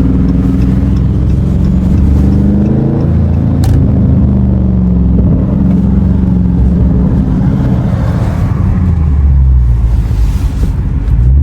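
The 6.4-litre 392 HEMI V8 of a 2021 Dodge Charger Scat Pack with a mid-muffler delete, its exhaust droning as the car is driven, the pitch rising and falling with throttle. A single sharp click comes a little under four seconds in.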